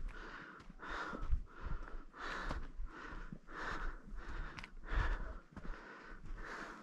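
A hiker breathing hard and rhythmically on an uphill climb, a breath in or out about every half second, with occasional low thumps.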